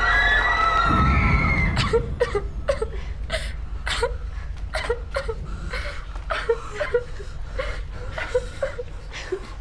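Several girls and women crying: irregular short sobs and sniffles, a few a second. At the start a held, wavering high tone fades out, with a low rumble coming in about a second in.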